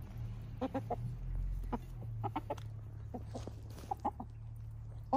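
Backyard hens clucking in short, low calls, often two or three in quick succession, while pecking at food, over a steady low background hum.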